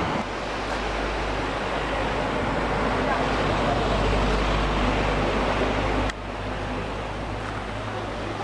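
Steady outdoor rumble and hiss of wind and road traffic with faint low hums. It drops abruptly about six seconds in.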